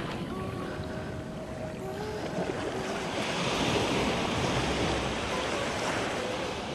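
Small waves breaking and washing up a sandy beach, a steady surf hiss that swells about halfway through as a wave runs up the shore, with some wind on the microphone.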